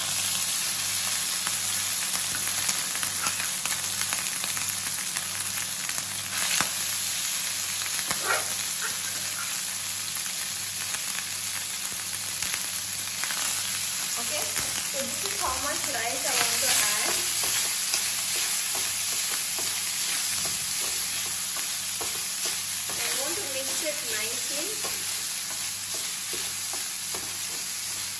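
Cooked rice frying in hot oil with burnt garlic in a pan, sizzling steadily, while a wooden spatula scrapes and taps as the rice is stirred in.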